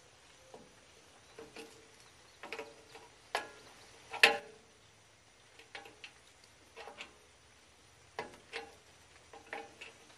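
Hand tool clicking and clinking against the metal hub of a condenser fan blade as its set screw is tightened onto the new fan motor's shaft: irregular metallic ticks, some with a short ring, the loudest about four seconds in.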